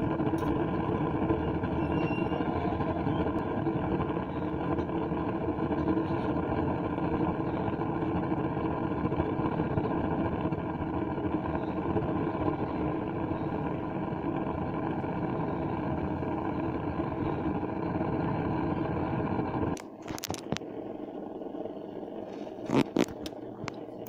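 Wood pellet rocket-stove burner running with a steady rumble of combustion and draft. The rumble cuts off suddenly about twenty seconds in, leaving a quieter background with a couple of brief knocks.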